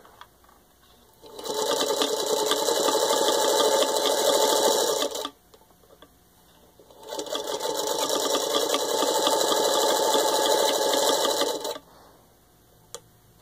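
Singer 221-1 Featherweight sewing machine running under its electric motor, stitching through four layers of denim in two runs of about four seconds each, with a short pause between them.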